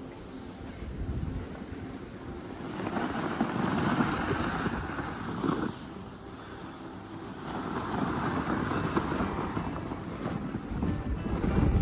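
Edges scraping and hissing across groomed snow in two long swells, one for each turn on the descent, over a steady rush of wind on the microphone.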